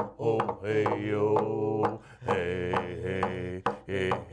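Outro music: a voice singing a chant-like melody over a steady drum beat of about two beats a second.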